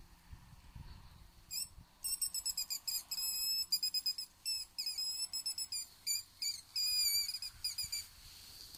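Wolfers harp predator call blown as fox bait: a fast run of short, high squeaks and longer wavering squeals, starting about a second and a half in and stopping near the end.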